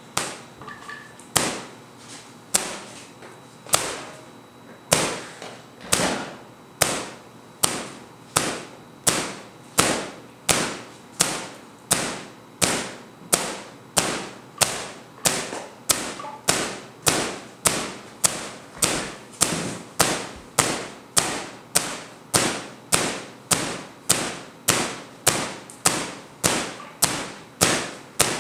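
Three-phase Tesla coil firing in single sharp snaps. The snaps come about once a second at first and grow steadily faster, to nearly two a second, each with a short ringing tail.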